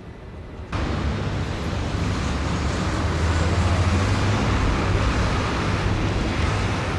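Road traffic noise with a heavy vehicle's engine running close by, cutting in abruptly about a second in and swelling a little before easing near the end.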